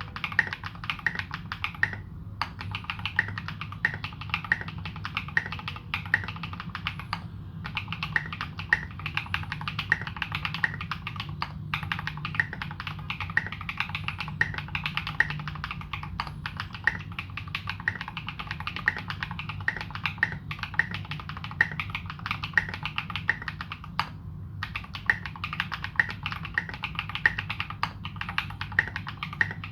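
Continuous fast typing on a custom Morgan65 65% mechanical keyboard with modded Holy Panda tactile switches and SA profile keycaps: a dense run of key clacks with a few short pauses, over a steady low hum.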